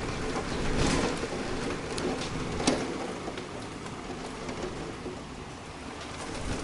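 Heavy rain falling steadily in a severe thunderstorm. It swells about a second in, and a few sharp taps come through, the loudest about two and a half seconds in.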